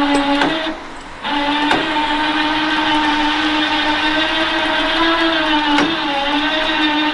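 Electric winch motor running with a steady whine as it pulls a heavy load. It cuts out briefly about a second in and starts again, with a few sharp clicks, and its pitch wavers slightly later on.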